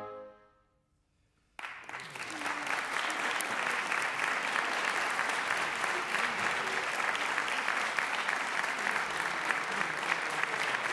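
The wind octet's final chord dies away, and after a second of silence the audience breaks into steady applause about a second and a half in.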